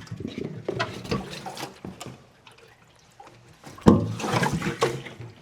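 Fuel sloshing inside a Kawasaki ZX-6R fuel tank as the partly filled tank is lifted off and moved, with light knocks from handling it. The sloshing is loudest about four seconds in.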